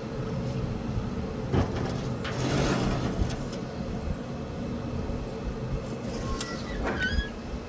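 Steady hum from the running pellet smoker, with a few light metal knocks as the cooling rack and pot are set down on the grill grate.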